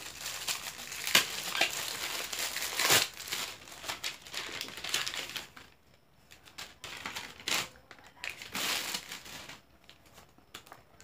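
Plastic packaging crinkling and rustling as a wallet is unwrapped by hand. The crinkling is dense and busy for the first half, then drops to a few short rustles near the end.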